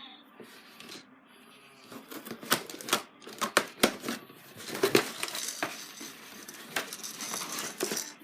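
Toy doll and its plastic packaging being handled: irregular sharp plastic clicks, taps and light rustling, starting about two seconds in.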